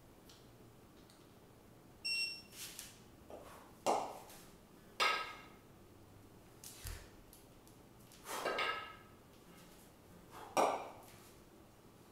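A pair of 20 kg kettlebells clinking and knocking during long-cycle reps: a series of separate metallic clinks, some with a brief ringing tone, and a low thump near the middle.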